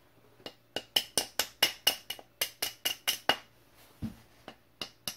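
Light metal taps on an AR-15 hammer pin, driving it through the lower receiver and hammer: about a dozen quick taps at roughly four a second, a pause, then a few more near the end.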